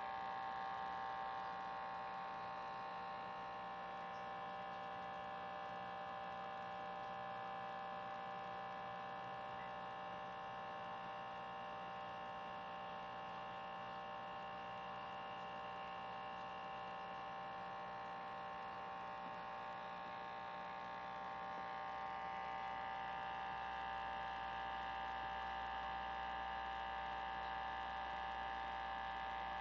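Small aquarium filter's motor humming steadily, a constant electrical hum with no change in pitch.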